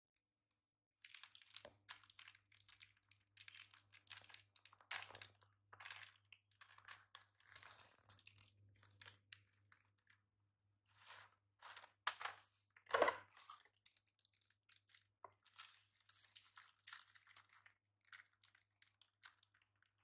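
Plastic snack packet crinkling and rustling as hands grip and pull at it, in irregular bursts, with one louder crackle about two-thirds of the way through.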